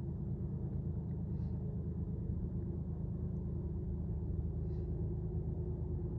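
Diesel locomotives of a loaded coal train working hard up a steep grade, heard as a steady low rumble with a humming tone.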